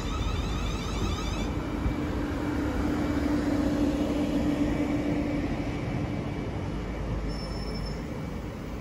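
Three-unit, 12-car Class 450 Desiro electric multiple unit rolling slowly past as it brakes to a stop. The wheels rumble on the rail, a high whine shifts in pitch for the first second or so, and a steady hum sits in the middle, easing off a little toward the end.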